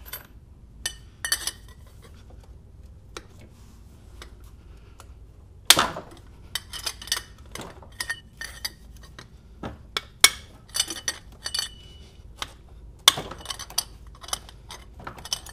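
Irregular metallic clicks and clinks of hand tools, a socket wrench on bolts, as transmission bell housing bolts are loosened and backed out, with three louder clinks spread through.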